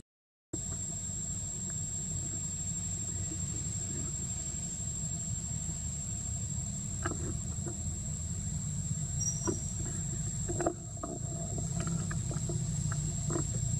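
Steady high-pitched insect drone over a low steady rumble, with scattered small clicks and taps; the sound drops out for a moment at the very start.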